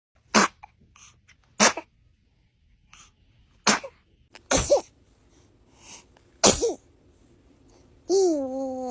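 A baby sneezing five times, short sharp sneezes a second or two apart, some ending in a tiny squeak. Near the end comes a drawn-out voiced sound.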